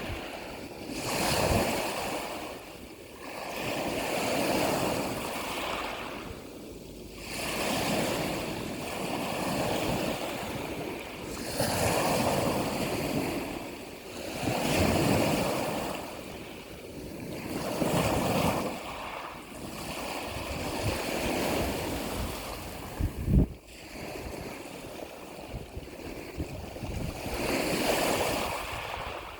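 Ocean waves washing ashore, the surf swelling and fading every few seconds. A single sharp thump near the end.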